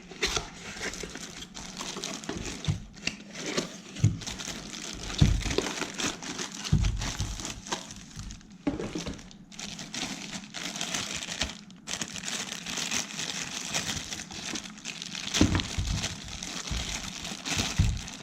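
Plastic packaging crinkling and crackling as smart-lock parts are unwrapped and handled, with irregular ticks and a few dull knocks of parts being moved.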